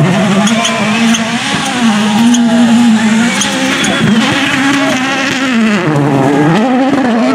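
Citroën C3 WRC rally car's turbocharged four-cylinder engine revving hard as the car drives past. The engine note climbs and drops again and again as the driver works the throttle and gears.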